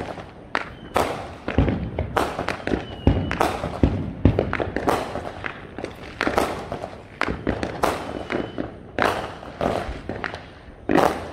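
Fireworks going off all around in rapid, irregular succession: sharp bangs and crackling pops, several of them deeper booms.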